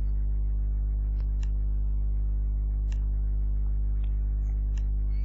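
Steady low electrical mains hum with a row of overtones, with a few faint mouse clicks scattered through it.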